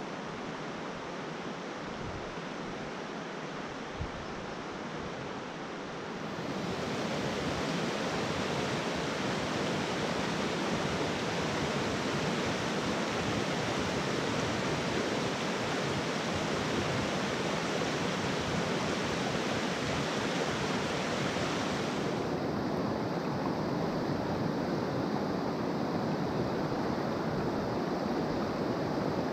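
River water rushing over rocks and shallow rapids: a steady hiss of flowing water that gets louder about six seconds in.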